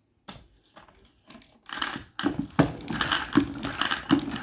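Milton spin mop's handle-driven spin mechanism clattering as the handle is pumped and the mop head spins in the bucket's spinner basket. A few light clicks come first, then a rhythmic clatter starts about two seconds in, about two strokes a second. The freshly cleaned and oiled mechanism, jammed before, now spins freely.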